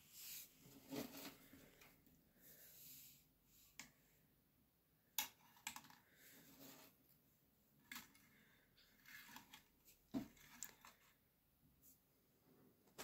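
Faint rustling and a few light, sharp clicks as loose copper wire and braid from antenna cable are handled and set down on the plastic plate of a kitchen scale.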